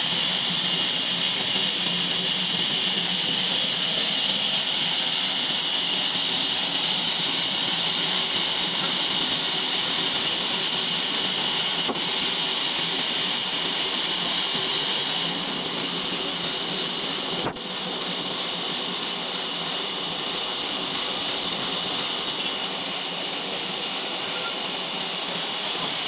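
Large log band saw running steadily with a constant hiss. It drops a little in level about halfway through.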